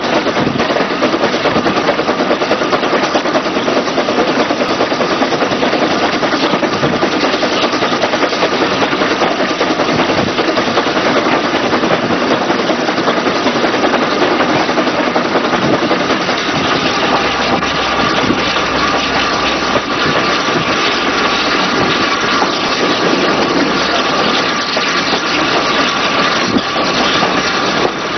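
A steam tank locomotive running along the line, heard from its footplate: a loud, steady din of its running.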